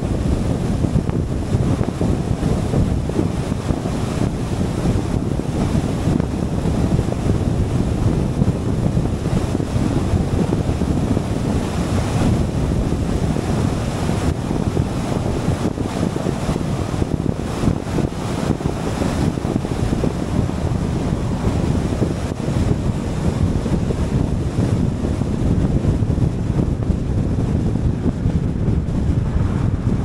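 Wind rushing over the microphone and the road noise of a car driving at freeway speed, a steady low rush with no let-up.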